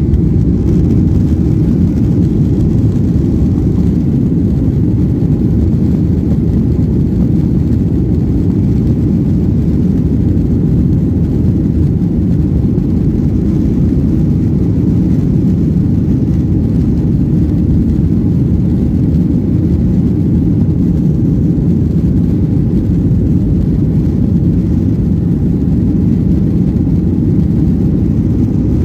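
Jet airliner engines at takeoff power, heard from inside the cabin over the wing as a loud, steady, deep rumble during the takeoff roll down the runway.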